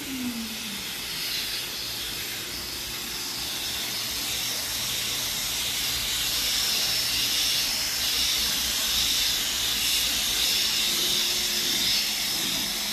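Pressure washer lance spraying water over an electric scooter and wet concrete, rinsing off cleaning foam: a steady hiss of spray that grows a little louder, with a faint steady hum beneath.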